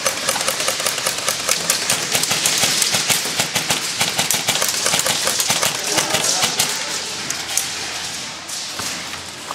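Airsoft guns firing in rapid, irregular volleys of sharp cracks, densest in the first half and thinning near the end.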